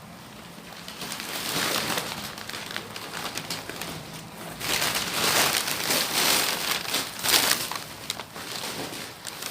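Plastic packaging being handled, rustling and crinkling in irregular bursts, busiest a little past the middle.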